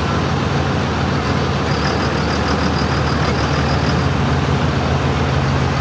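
Dodge Ram pickup's Cummins diesel engine running steadily at rest at the end of a sled pull, holding an even, unchanging note.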